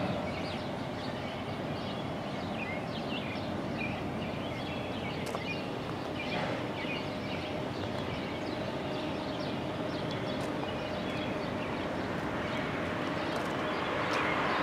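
Freight train led by a GE AC44CW diesel locomotive approaching from a distance, a steady rumble that grows louder over the last few seconds, with birds chirping over it.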